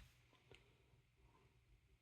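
Near silence: room tone, with a faint click at the very start and a fainter one about half a second in.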